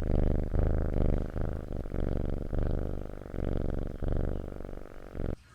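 Cat purring in steady, rhythmic swells about twice a second, cutting off abruptly near the end.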